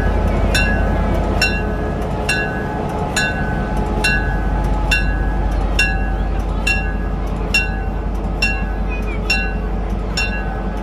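Diesel locomotive's bell ringing steadily, one strike a little under every second, over the low steady running of the locomotive's idling diesel engine.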